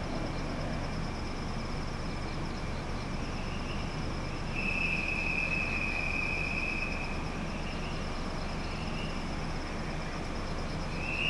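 Standing 681-series limited express electric train humming steadily while it waits at the platform. A high steady tone sounds for about two and a half seconds a little before the middle, and again near the end.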